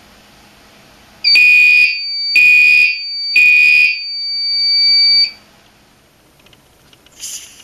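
Fire alarm horns sounding during an audible walk test of the panel: three short, loud buzzy blasts about a second apart over a steady high tone. The tone holds on after the last blast and cuts off about five seconds in. Two brief, sharp high-pitched sounds follow near the end.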